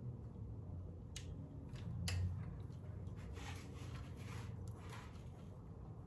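A few faint clicks, about one and two seconds in, then light scraping: small bracket hardware being fitted by hand at a motorcycle's front fork.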